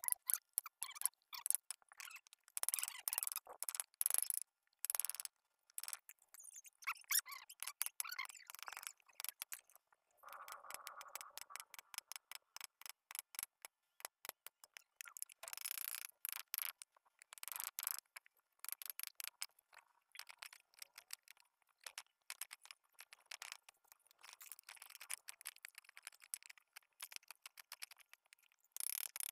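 Hand chisel paring and scraping a small wooden block: a run of short, irregular cutting and scraping strokes, with a longer scrape about ten seconds in.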